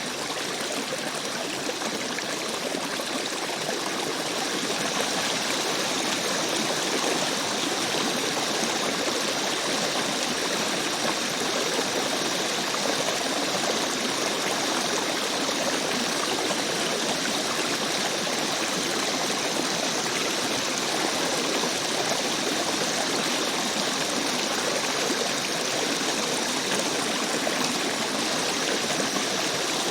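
Stream of water running steadily, an unbroken trickling flow.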